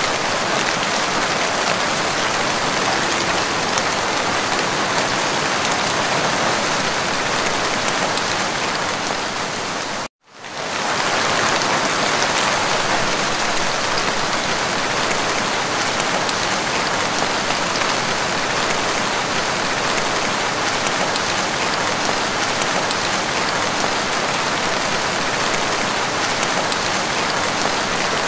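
Steady rain falling on leafy plants, a dense even hiss. It cuts out for a moment about ten seconds in and fades back up.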